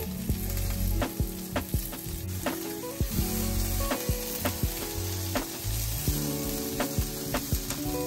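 Food frying and sizzling in a pan, with background music: a bass line that steps from note to note and a steady beat of sharp clicks.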